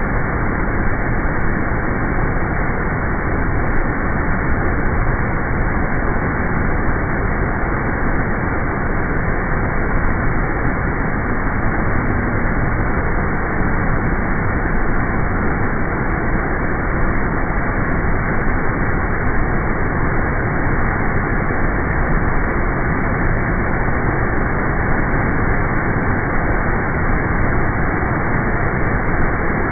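Waterfall's water rushing, a loud, steady, even noise.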